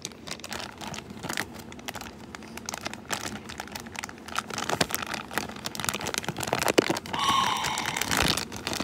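Small clear plastic bag crinkling as fingers pull and tug at it to open it, a dense patter of little crackles that grows louder in the last couple of seconds.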